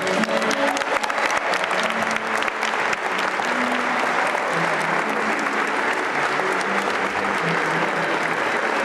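Wedding guests in the pews applauding, a dense, steady clapping that keeps going.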